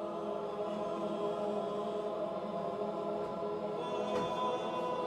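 Audience singing a long held 'oh' together, two groups sustaining different notes in harmony.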